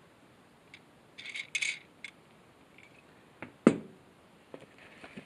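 Hands handling winch parts in their cardboard and styrofoam packing: two short rustling scrapes about a second in, a few light clicks, then one sharp knock past the middle as a part is set down.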